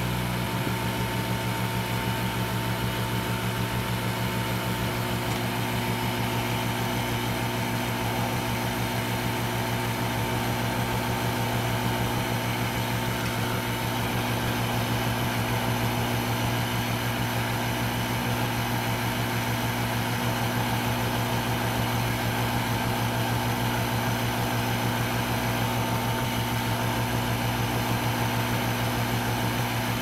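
Hot-air blower of a BGA rework station running steadily, a constant whir with a low hum and a thin steady tone, blowing hot air to reflow the solder balls of BGA RAM chips onto a laptop logic board.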